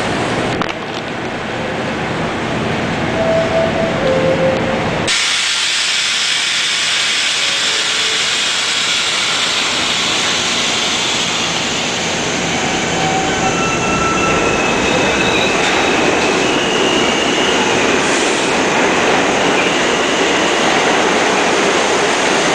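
New York City subway train running past a station platform: a steady rumble and hiss of wheels on rail, with brief high squeals now and then. About five seconds in the sound changes abruptly and becomes brighter and louder.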